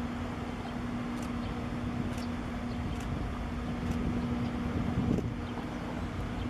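Steady low hum from a large container ship's machinery as it moves slowly past, over a low rumble of wind on the microphone.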